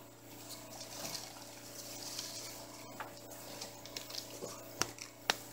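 Rustling and scuffing of someone moving through brush beside the shed, with scattered light clicks, then two sharp knocks near the end as a ladder is set against a leaning OSB sheet.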